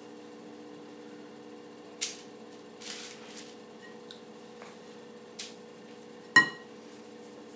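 A metal spoon scraping and clinking against a glass mixing bowl as cookie dough is scooped: a few sharp knocks and a scrape, the loudest a ringing clink about six seconds in, over a steady low hum.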